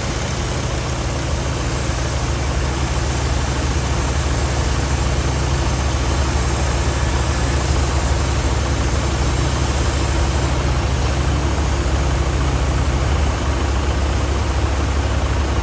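Engine of a Wood-Mizer portable sawmill running steadily.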